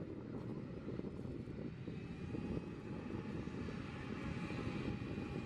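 Boeing 767-300ER's twin jet engines at taxi power: a steady low rumble with a faint high whine that grows a little stronger partway through.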